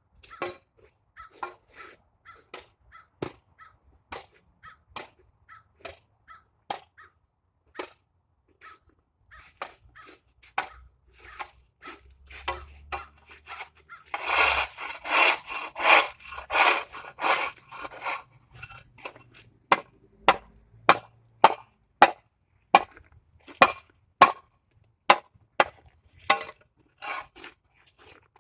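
A hand tool chopping ice: repeated sharp strikes, about one or two a second, as ice is broken up. Midway there are a few seconds of scraping as the broken ice is pushed or shovelled.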